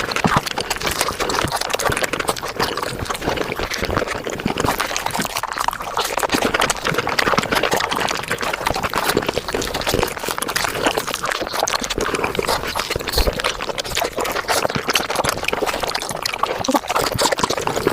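Mouth sounds of someone eating a Japanese fruit sandwich of cream and fruit, played back at five times speed: a dense, continuous run of wet squelching and rapid smacking clicks.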